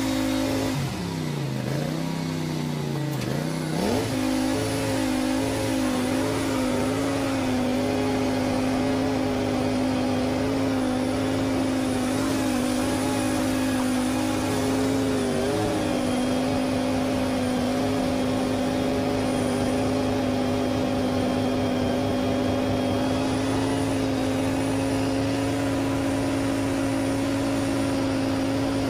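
A John Deere X570 lawn tractor's engine runs at a steady high speed, driving its front-mounted snowblower through wet snow. About a second in, the engine note sags deeply and climbs back within a few seconds. It dips briefly again about halfway through.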